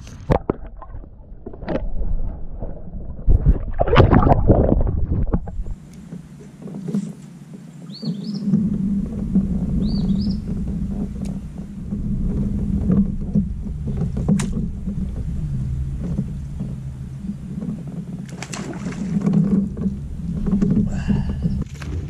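Fishing kayak moving through the water with the steady low hum of its Old Town PDL pedal drive, which sets in about six seconds in. Before that come handling knocks and a louder burst of noise, and two short rising bird chirps come through the hum.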